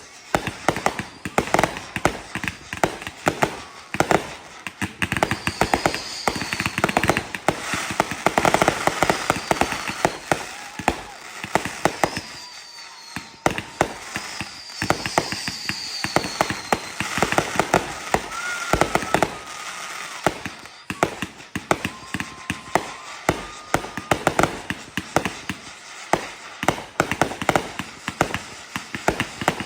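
Fireworks going off in rapid, nearly continuous bangs and crackling, with brief lulls about twelve and twenty seconds in. A few short falling whistles are heard through the middle.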